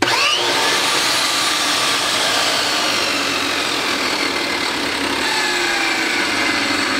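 Ridgid Model 4516 table saw switched on, its motor and new blade spinning up quickly with a rising whine and then running steadily. This is the first test run showing the salvaged saw works.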